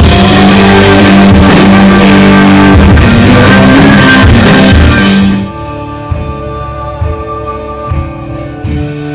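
A live band plays loud rock-leaning music, with guitar and drums keeping a steady beat. About five and a half seconds in, the full band drops out and a held guitar chord rings on, with light regular taps underneath.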